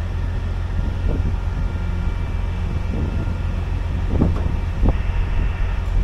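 Heavy wrecker's diesel engine running steadily during a winch recovery, a constant low rumble with a faint steady whine above it. A couple of brief low knocks come about four and five seconds in.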